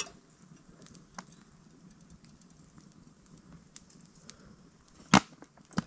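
Handling of a Sawyer water filter and a plastic PET bottle: faint scattered ticks, then two sharp clicks about half a second apart near the end.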